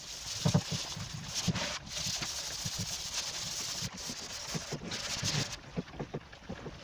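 Primed plywood board being sanded by hand: a scratchy hiss of abrasive on the primer, coming in stretches with short breaks, over small irregular knocks.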